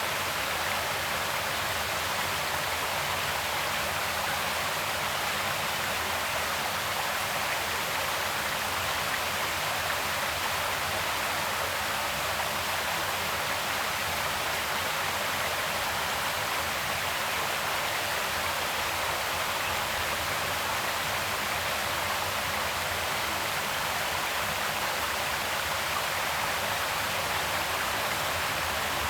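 Creek water flowing steadily, an even rushing that does not change.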